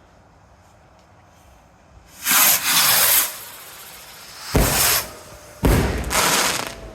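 Fireworks going off: a loud hissing burst lasting about a second, then two bangs about a second apart, each trailing off in a hiss.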